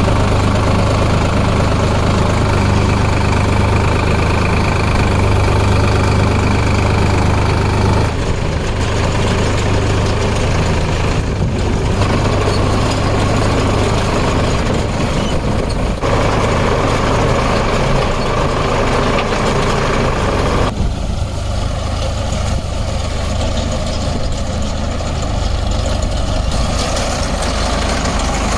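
Solis 4515 tractor's diesel engine running steadily while working a baler, a loud low-pitched hum whose character shifts abruptly a few times.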